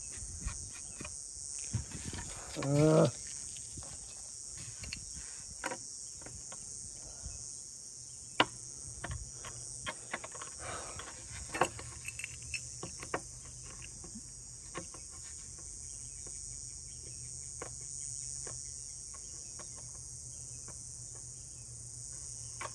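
Crickets chirping steadily in the background, with scattered light clicks and knocks, and one short rising whine about three seconds in that is the loudest sound.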